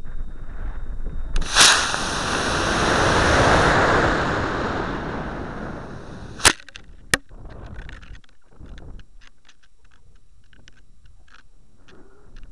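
Model rocket on a cluster of two Estes C6-3 motors: the motors light with a crack and burn with a loud rushing hiss that fades over a few seconds as the rocket coasts. Then come two sharp pops about half a second apart, the ejection charges of the two motors, followed by quieter wind rustling with small clicks.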